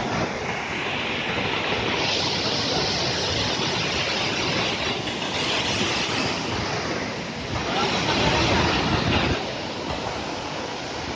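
Waterfall's falling water rushing as a steady dense noise that swells and eases a little from moment to moment.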